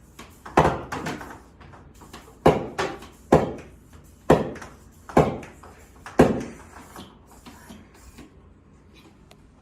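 Nerf blaster fired six times, about a second apart, each shot a sharp thunk that dies away quickly.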